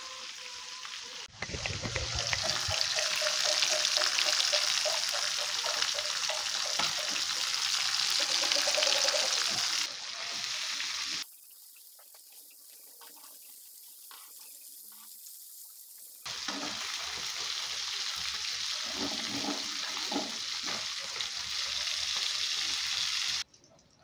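Snakehead fish pieces frying in hot oil in a metal wok, a steady loud sizzle as the pieces are turned with tongs. The sizzle breaks off abruptly about eleven seconds in, returns about five seconds later, and cuts off just before the end.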